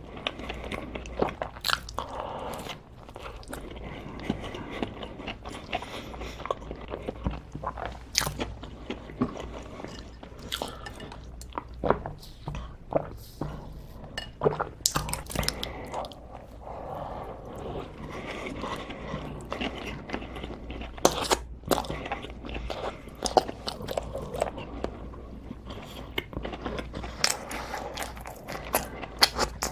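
A person biting and chewing crunchy food close to the microphone, with irregular sharp crunches throughout.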